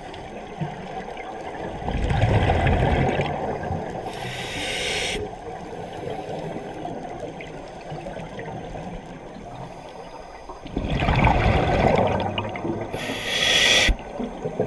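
Scuba diver breathing through a regulator underwater, two breaths: each a rumbling, gurgling rush of exhaled bubbles followed by a shorter high hiss of inhaling through the regulator.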